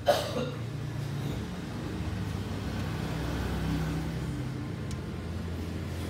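Peugeot 406's engine running steadily, with a short sharp sound that falls in pitch right at the start.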